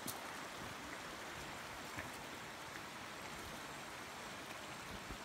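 Shallow rocky stream running over stones: a steady, even rush of water, with a couple of faint clicks.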